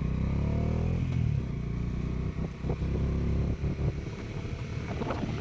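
Bajaj Dominar 400's single-cylinder engine revving up, its note rising for about a second. The throttle then eases off and it runs on at a lower, quieter, rougher note.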